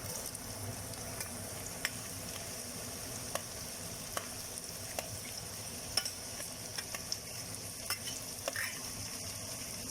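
Chopped onions and garlic sizzling in melted butter in a frying pan, with scattered light clicks of a utensil stirring against the pan.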